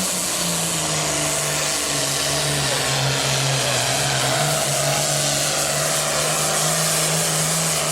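Super Farm class pulling tractor's turbocharged diesel engine running hard at high revs, a steady drone with a strong hiss on top. Its pitch drops slightly about two seconds in.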